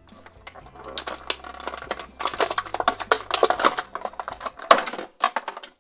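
Clear plastic blister packaging crinkling and crackling as hands handle a toy and pull it free. It makes a dense run of sharp clicks and rustles that stops just before the end.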